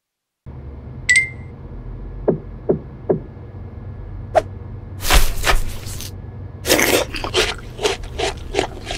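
Cartoon sound effects: a click with a short ring about a second in, then three hollow knocks on a whole watermelon, each falling in pitch. A single click and a run of short, scratchy noise bursts follow.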